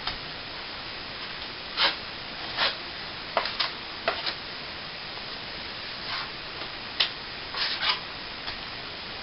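A steel plastering trowel scraping and spreading cornice cement over a patch in a plasterboard ceiling: about ten short, irregular scrapes over a steady hiss.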